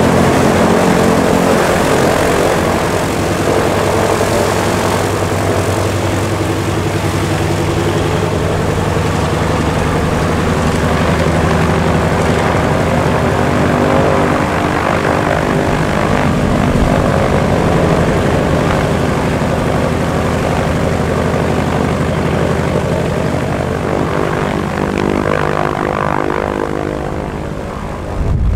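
The two Shvetsov ASh-62IR nine-cylinder radial engines of a Lisunov Li-2T running at low power with propellers turning as the aircraft taxis. The engine note stays steady, shifting slightly in pitch and level.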